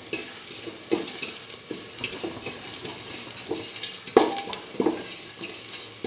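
A utensil scraping and knocking against a metal pan while whole spices (coriander, fennel and poppy seeds, with cashew and cardamom) are stirred in hot oil, over a steady sizzle. There is a sharp knock about four seconds in.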